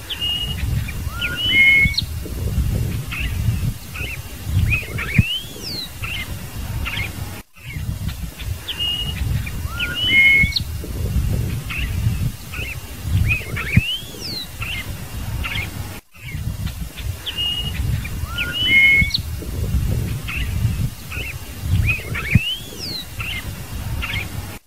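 Scarlet-headed blackbird singing: short clear whistles and rising slurred notes. The same phrase repeats three times, about every eight and a half seconds, with a brief break between repeats, over a loud low rumble.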